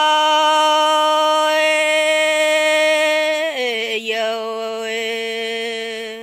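A woman singing a Red Dao folk song (hát lượn) unaccompanied, holding one long note; about three and a half seconds in, the note drops lower and wavers with vibrato, and the voice stops just at the end.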